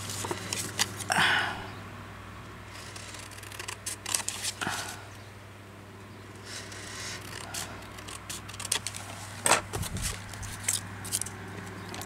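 Scissors cutting paper or card in irregular snips, with the paper rustling now and then as it is handled.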